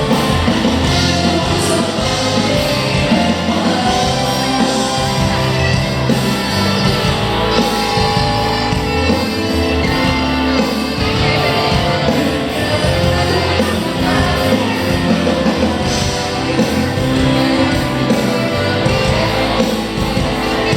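Live band music with a singer during a concert sound check, loud and continuous.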